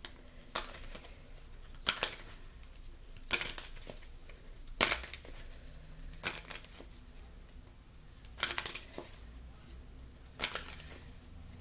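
A Ramses tarot deck being shuffled by hand: about seven short papery riffles of the cards, one every second and a half or so.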